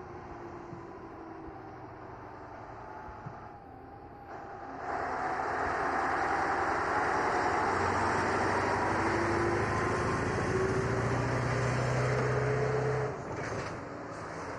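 Heavy diesel truck with a drawbar trailer driving past close by: quieter at first, then engine and tyre noise jump up about five seconds in and stay loud, the engine's low hum rising slightly in pitch, before dropping away abruptly near the end.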